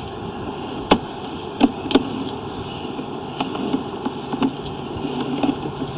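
Sewer inspection camera's push cable being pulled back out of the line: a steady mechanical hum with scattered sharp clicks and knocks.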